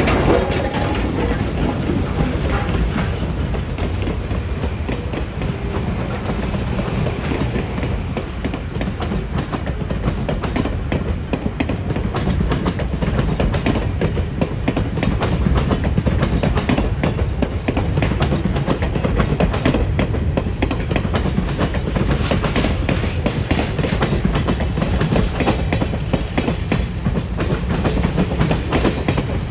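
A train rolling past with a steady low rumble, its wheels clicking over the rail joints.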